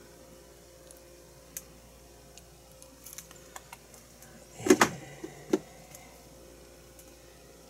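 A ketchup squeeze bottle being squeezed out onto bread, giving a few faint clicks and spurts. A little after halfway comes a loud knock, with a lighter one about half a second later.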